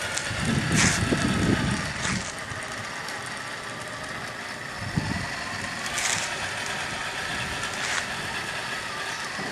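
Engine sound effect from the on-board mp3 sound module of a 1/16 scale RC M1A2 Abrams tank, running steadily with a faint high whine. A louder low rumble swells in the first two seconds, and four short hisses come at intervals.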